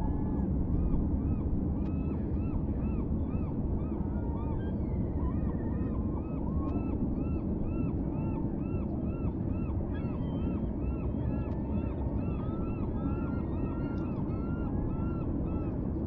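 A flock of large waterbirds calling: many short notes that rise and fall in pitch, several a second and overlapping, starting about a second and a half in. A steady low rumble runs underneath.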